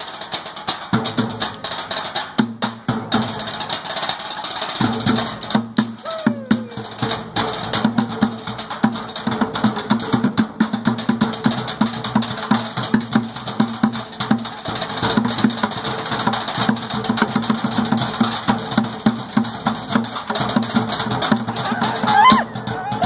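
Percussion group drumming with sticks on metal trash cans and plastic buckets, a fast, dense, continuous rhythm. Near the end the beat breaks off briefly.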